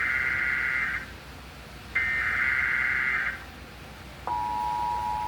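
Emergency Alert System SAME header on NOAA Weather Radio: a harsh digital data burst ends about a second in and a second identical burst runs from about two seconds in, then a steady alert tone starts near the end. It is the alert signalling for a flash flood warning.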